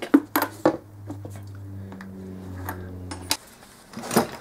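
A few sharp clicks and knocks of small parts being handled, then a steady low hum for a couple of seconds that cuts off suddenly with a click.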